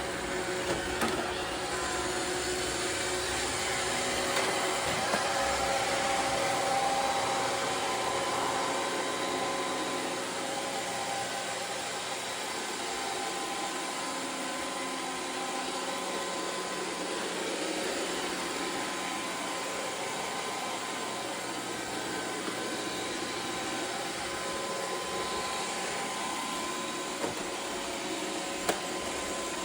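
iRobot Roomba 675 robot vacuum running: a steady whir from its vacuum motor and brushes with a few steady tones in it, and two short sharp clicks near the end.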